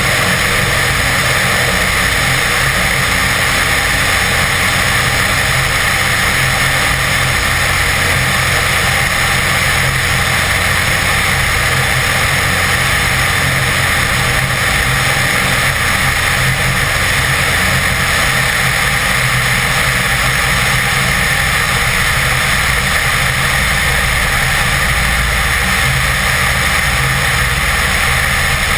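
BD-4 light aircraft in flight, heard from a wing-mounted camera: its piston engine and propeller drone steadily, mixed with the rush of wind over the camera. The low engine note shifts slightly about two-thirds of the way through.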